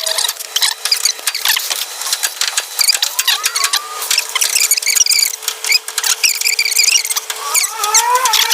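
Hand tools working on the old front spring shackle bolts: a run of sharp metallic clicks and squeaks, with two short rising squeals, one about three seconds in and one near the end.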